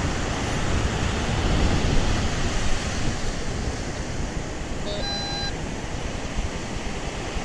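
Steady wind and surf noise at the beach. About five seconds in, the metal detector gives one short electronic beep.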